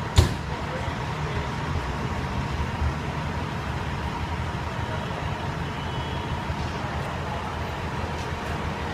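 Fire engine's diesel engine idling on scene: a steady low rumble, with one sharp knock just after the start.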